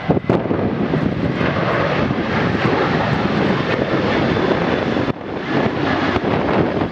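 Jet engines of a KLM Boeing 737 at climb thrust just after takeoff: a loud, steady rushing jet noise that dips briefly about five seconds in.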